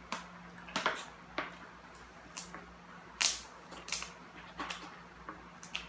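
Scissors snipping and cracking through a crab leg shell: a run of sharp, irregular clicks and cracks, the loudest about three seconds in.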